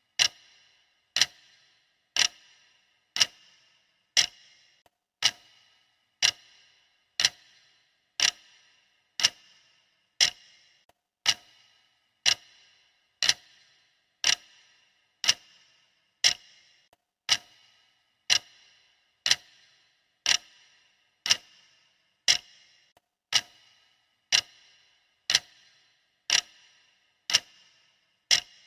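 Steady clock ticking, one sharp tick each second, every tick with a brief ringing tail.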